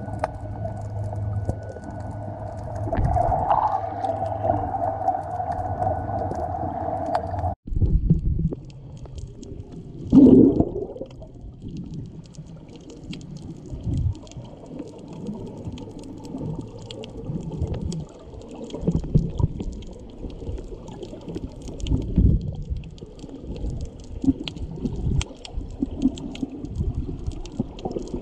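Sound recorded underwater while snorkeling. A steady hum with a few held tones cuts off abruptly about seven seconds in, and is followed by irregular gurgles and low thumps of water moving around the camera.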